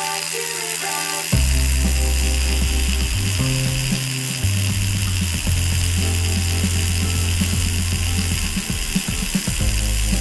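Small battery-powered handheld fan running with a steady buzzing, rattly whirr as it blows the wooden balancing toy round. Scattered clicks come in the second half.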